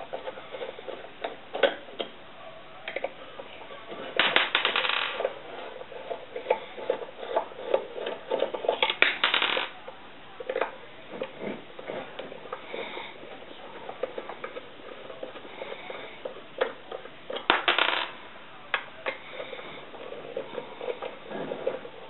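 Hands handling a metal grid-tie inverter on a countertop: scattered small clicks and taps of metal and plastic, with three short scraping rustles.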